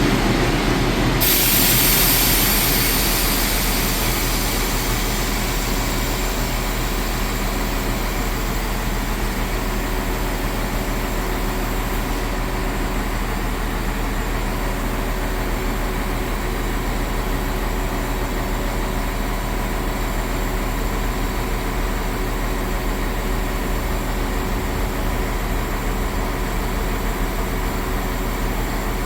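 A train standing at the platform with its machinery running: a steady mechanical hum holding several fixed tones. A loud hiss starts suddenly about a second in and fades over the next few seconds.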